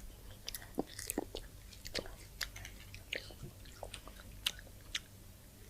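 Close-up chewing and biting of crispy fried fast food, french fries and chicken nuggets, with irregular small crunches and mouth clicks.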